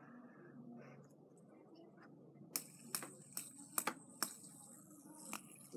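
Nearly quiet at first, then from about two and a half seconds in several light, irregular clicks and taps of hands handling small hard objects.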